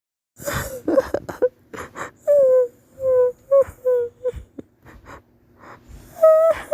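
Cartoon-style crying sound effect: a voice sobbing, with ragged gasping breaths at first and then a run of short wailing sobs, each about half a second long and dipping slightly in pitch, with breaths between them.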